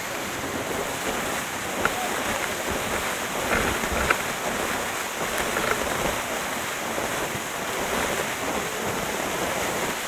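Waterfall pouring and splashing with a steady rushing sound, heard from right under the falling water. A couple of brief sharp knocks come about two and four seconds in.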